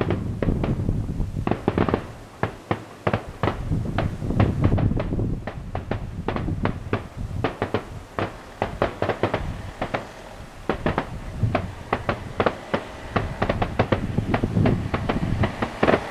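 Fireworks going off: a dense, irregular run of sharp bangs and pops, several a second, over a low rumble.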